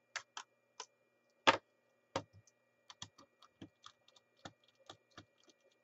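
Clicks and light knocks of a small plastic radio case being handled and opened with a screwdriver: one sharper knock about one and a half seconds in, then a run of small irregular clicks and ticks.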